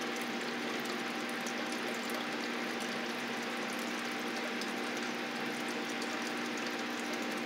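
Aquarium pump running: a steady hum with an even watery hiss, unchanging throughout.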